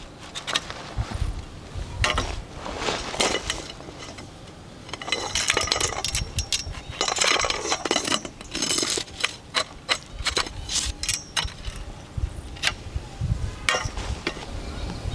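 Camp gear being handled: light metal clinks and knocks, with a busier stretch of handling noise in the middle.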